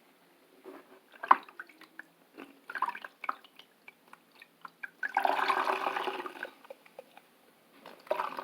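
Water splashing and dripping as a squishy toy is washed by hand, in several short bursts, with a longer rush of water about five seconds in.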